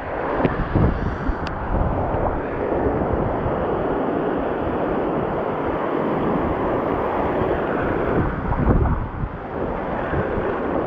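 Surf breaking and washing up the shore in a steady rush, with wind buffeting the microphone in gusts near the start and near the end.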